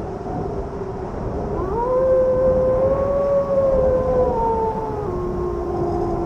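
Wolf howling over a steady rush of wind: one long howl starts about a second and a half in, rising a little and then falling away, with a lower held note near the end.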